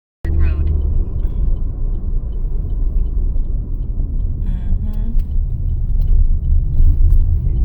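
A car being driven, with a steady, heavy low road and engine rumble.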